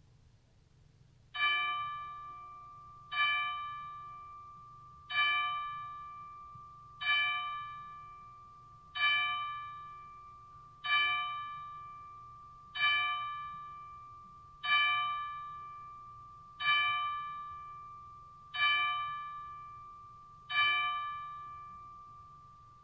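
A single bell tolling: eleven strikes on the same note, about two seconds apart, each ringing on and fading before the next.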